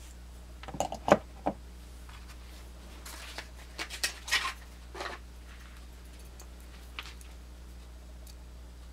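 Handling noises from pocket knives and their boxes: a few sharp clicks and knocks about a second in, then rustling and light scraping, and one more small click near the end. A steady low hum sits underneath.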